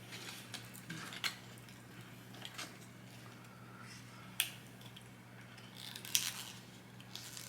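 Close-up eating sounds: a person chewing fast food, with scattered wet mouth clicks and short crunchy crackles every second or two. A low steady hum runs underneath.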